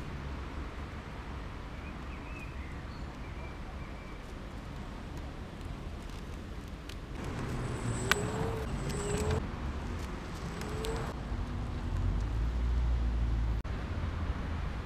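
Ninebot ES2 electric kick scooter riding past close by, its wheels rolling on asphalt with a faint electric motor whine, swelling about seven seconds in and fading by about eleven. A strong low rumble follows near the end.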